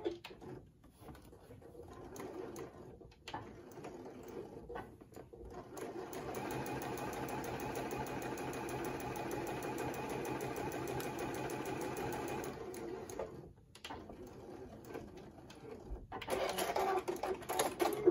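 Juki sewing machine stitching a straight seam through stuffed flannel: a few slower starts, then running steadily for about six seconds before stopping. Near the end, fabric is handled and rustled as the piece is moved.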